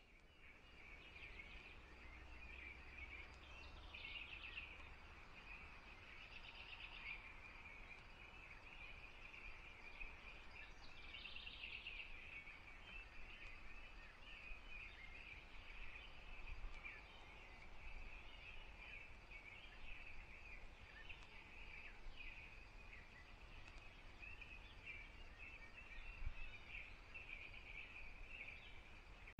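Faint chorus of songbirds, overlapping chirps and song phrases with a few louder bursts in the first half, over a steady low hiss from the trail camera's microphone.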